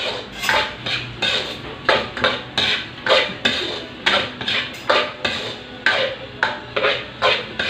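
Spatula scraping and knocking against a wok, about two to three strokes a second, stirring a sautéed milkfish, vegetable and egg filling.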